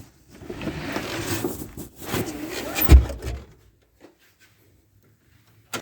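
Rear seatback of a 2015 Honda Civic being pushed down: rustling and scraping for about three seconds, ending in a heavy thump as it lands, then a single sharp click near the end.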